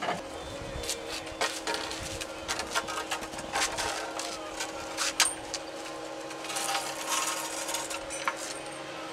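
Tobacco leaf bundles being hung on the wooden rails of a drying barn: scattered knocks, clicks and leaf rustling over a steady hum.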